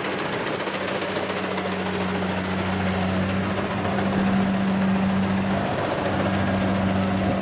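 Kubota DC70 rice combine harvester at work, its diesel engine and threshing machinery running steadily with a constant hum under a dense mechanical rattle.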